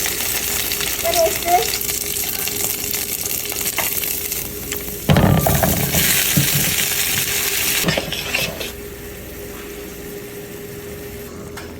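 Food sizzling as it fries in a hot pan, with stirring. About five seconds in the sizzle suddenly gets much louder for a few seconds, then falls back to a quieter hiss.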